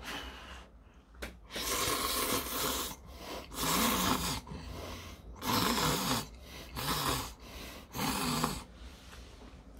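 A man slurping instant ramen noodles from a small bowl: about five long, noisy slurps in a row with short pauses between them.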